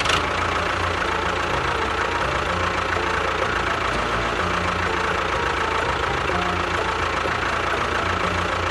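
A motor running steadily at an even speed, like an engine idling, with a fluttering low rumble.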